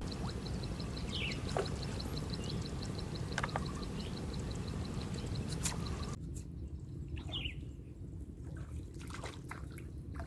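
Outdoor marsh ambience: wind rumbling on the microphone, with a few short bird chirps. For the first six seconds a fast, even, high ticking runs under it, and it stops abruptly about six seconds in.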